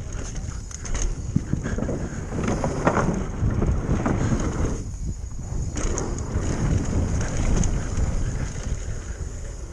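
Wind buffeting an action camera's microphone while mountain-bike tyres rumble over dirt, rock and wooden trail features, with scattered knocks and rattles from the bike. The noise drops away briefly about five seconds in, then picks up again.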